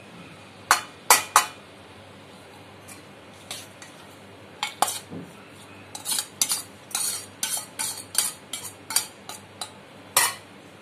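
Stainless steel spoon and vessels clinking and scraping against a steel bowl while cooked rice is mixed with lemon juice and fried tempering. Three sharp clinks about a second in, then a run of irregular clinks and scrapes from about five seconds in.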